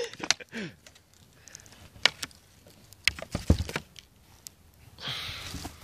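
Scattered small clicks and taps of hands handling a homemade air-pressure dart gun and its darts against a wooden board, with a brief hiss about five seconds in.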